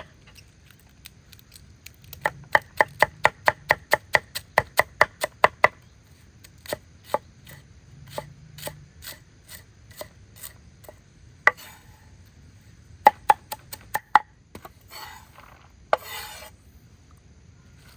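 Chopping: a fast run of sharp strokes at about four a second, then slower, scattered strokes, with a couple of short scraping sounds near the end.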